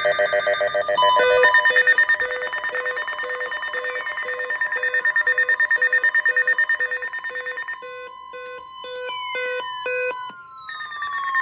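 NOAA Weather Radio alert tones before a severe thunderstorm warning: a steady, high 1050 Hz warning alarm tone starts about a second in. Layered over it are other electronic beeps, one pulsing about twice a second, plus several falling pitch sweeps.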